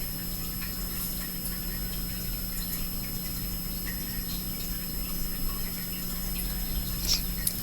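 Rainstorm outside heard faintly from inside a house: an even hiss of rain and wind with a few scattered drip-like ticks over a steady low hum.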